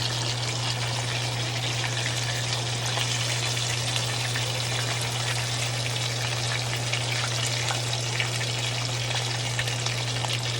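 Hot oil sizzling and crackling steadily around tacos deep-frying in a pan, with a steady low hum underneath.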